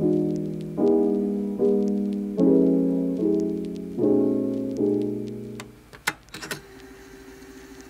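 Background piano music: gentle chords struck about every second, each dying away, until the music fades out nearly six seconds in. A few short clicks follow.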